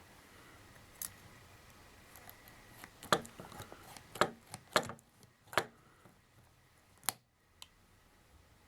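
Heavy-duty manual stainless steel cable tie tensioner working a stainless steel tie: a series of separate sharp metal clicks and snaps as it is squeezed to tighten the tie and its cutting lever trims it.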